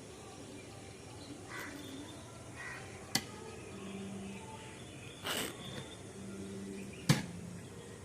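Two sharp knocks about four seconds apart, with a brief noisy rush between them and a few faint short sounds.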